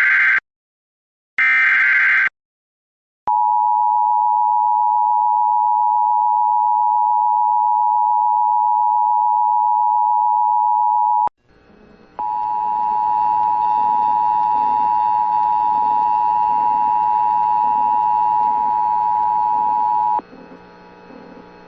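Emergency Alert System tones: two short buzzy SAME header data bursts, then the two-tone EAS attention signal held steady for about 8 seconds. After a brief break the attention tone sounds again for about 8 seconds over a background of hiss and hum, then cuts off, leaving low noise.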